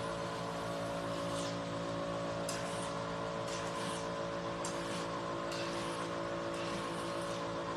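Hydrodermabrasion (hydrofacial) machine running with a steady multi-pitched hum from its pump, and short hisses of suction about once a second as the wand tip is stroked over the skin.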